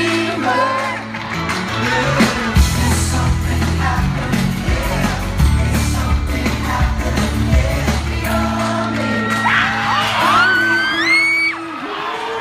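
Live pop band playing with male group vocals singing, and audience whoops over the music. Near the end a high voice glides upward in steps.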